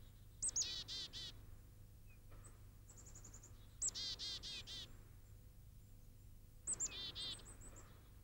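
A small songbird singing three short phrases about three seconds apart, each a sharp high note followed by a quick run of four or five repeated notes, with a few fainter, thinner high notes in between.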